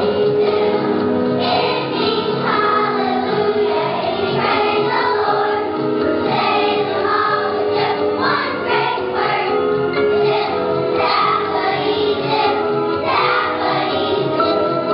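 Children's choir singing a song together over instrumental accompaniment.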